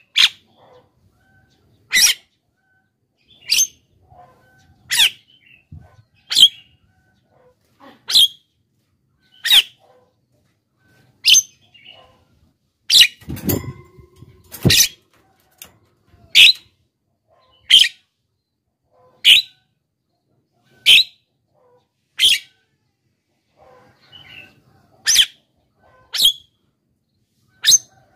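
A Javan myna calling loudly and persistently: short, sharp calls repeated about every second and a half. About halfway through there is a brief flutter as the bird flies up in its cage.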